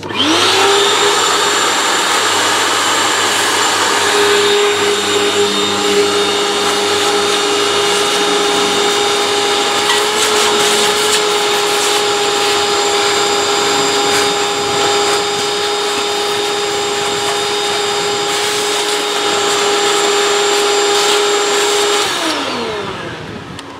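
Portable shop vacuum switched on, its motor spinning up to a steady whine while the hose sucks dirt from around the small-engine stator; about 22 seconds in it is switched off and winds down.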